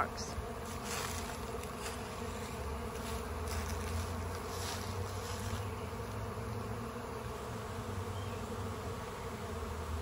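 A swarm of honey bees in flight, buzzing in a steady hum as they mill around their cluster.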